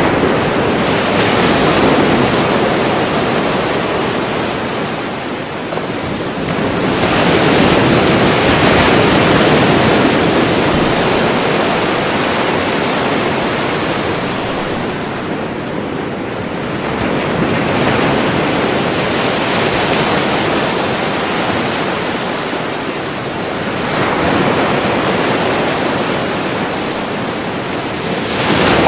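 Ocean waves breaking in slow surges: the surf swells to a crash and washes back about every seven seconds, four times here, over a constant hiss of moving water.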